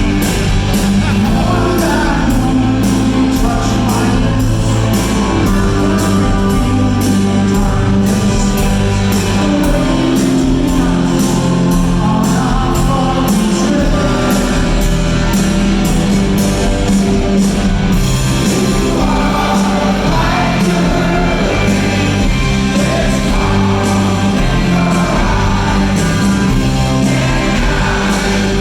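Live rock band playing loud in a large hall, with regular cymbal strokes through roughly the first two-thirds and a wavering lead line coming forward after that.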